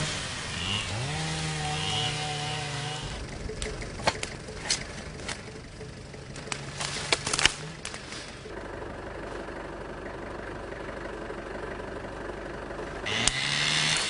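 Small two-stroke engine of a handheld forest-clearing cutting tool, revving up and held at high speed. A run of sharp cracks and snaps comes in the middle, the engine settles to a steadier, quieter hum, then revs up again near the end.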